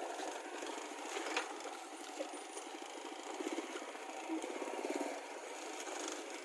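Engine of a slow-moving vehicle running steadily, with a sharp knock about a second and a half in.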